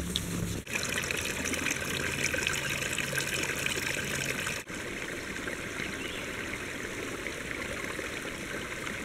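Shallow creek water trickling and babbling over rocks, a steady sound broken off briefly twice.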